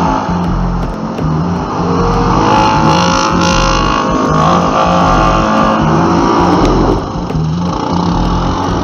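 Yamaha Viking side-by-side driving through creek water: the engine revs and water splashes off the tyres, over background music with a steady bass line.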